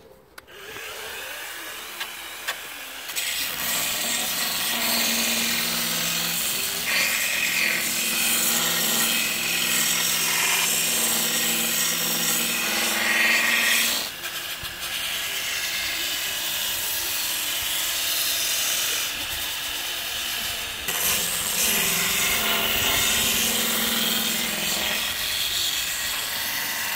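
Ryobi R18PF 18V cordless power file running, its narrow sanding belt rubbing across weathered pallet boards. The sound builds up over the first few seconds, then continues steadily, with a brief drop about halfway through and another change near three quarters of the way in.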